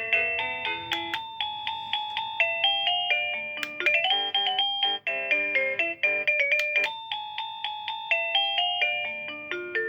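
AVANTEK wireless doorbell receiver playing an electronic chime melody through its small speaker: a quick tune of bell-like notes, several a second, each fading after it sounds, with a high and a low part together.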